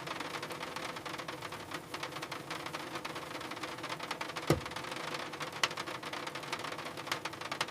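Rain pattering on a van's roof: a dense run of small ticks over a steady low hum, with a few louder drops standing out.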